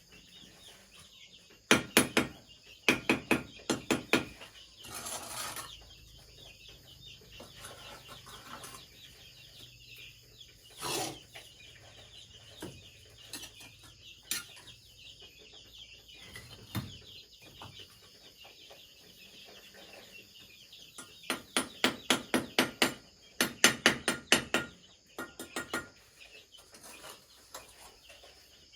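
Two runs of sharp knocks, about three to four a second, typical of a tool striking bamboo during trough building. Between them come chickens clucking and a steady high buzz of insects.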